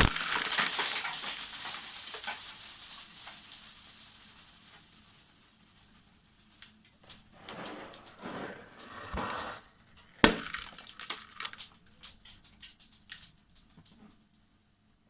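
A balloon bursts with a sharp bang, followed by a noisy rush that fades over several seconds. Later come scattered crackles, two more sharp pops about nine and ten seconds in, and a run of light clicks.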